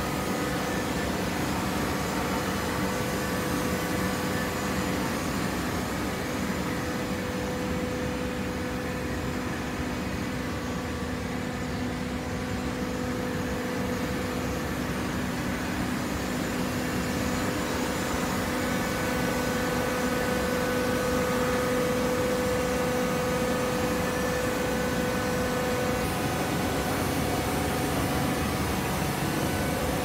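Horizontal hydraulic baler running, its hydraulic power unit giving a steady machine hum with two held tones, a little louder in the second half.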